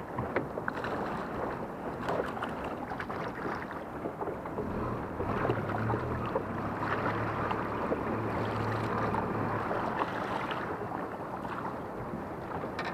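Water lapping and sloshing against a small skiff's hull, with wind on the microphone and a few small knocks. A low, steady motor hum comes in about four seconds in and fades out near ten seconds.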